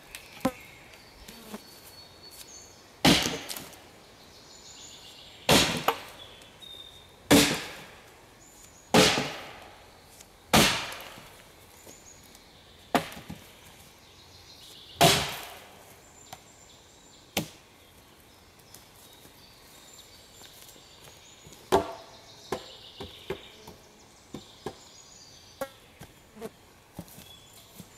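Gränsfors Bruks felling axe chopping a branch on the ground: about six heavy blows a second or two apart. Then come a few lighter knocks and clatters of wood being moved about.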